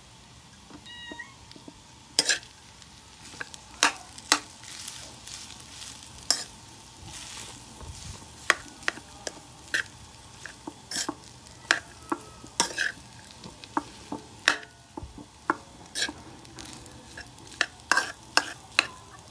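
Metal spoon scraping and clinking against a wide metal wok while fried rice is stirred and tossed, in irregular sharp strokes.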